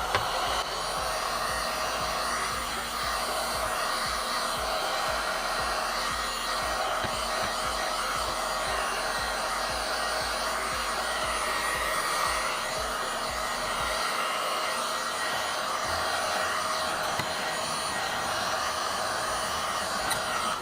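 Heat gun blowing steadily, heating the glue that seals a motorcycle headlight lens to its housing so the lens can be pried off. It switches on abruptly and cuts off suddenly at the end.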